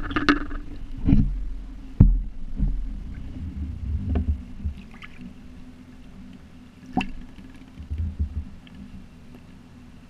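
Small waves lapping and sloshing against a half-submerged GoPro dome housing at a kayak's side, heard as a muffled low rumble that swells and fades, with a few sharp knocks against the hull, the clearest about two seconds in and again near the middle.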